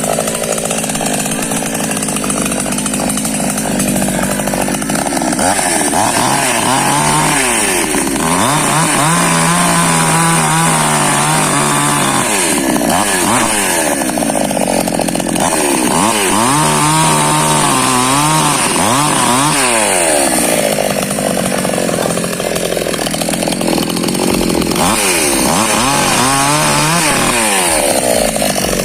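Chainsaw running while cutting firewood. Its engine pitch rises and falls again and again as it revs into and out of the cuts.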